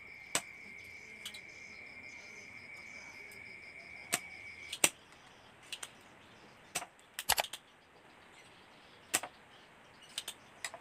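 Sharp clicks and snaps of a spring-loaded desoldering pump being cocked and fired while solder is cleared from the pins of a CRT TV's flyback transformer, some in quick pairs and a small cluster, the loudest about five seconds in. A steady high-pitched tone runs underneath and stops just before five seconds in.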